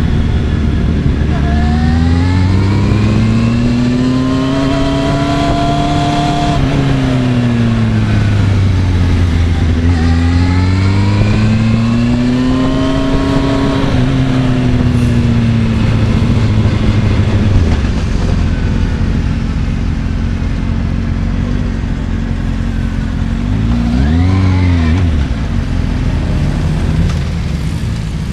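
Kawasaki ZX-6RR's inline-four engine heard from on board, rising and falling in pitch twice as the bike pulls away and slows, then running low and steady, with a short throttle blip near the end.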